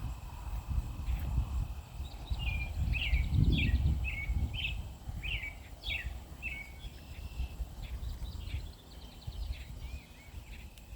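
A songbird singing a quick series of short chirping notes for several seconds, then trailing off, over uneven low noise from wind or movement.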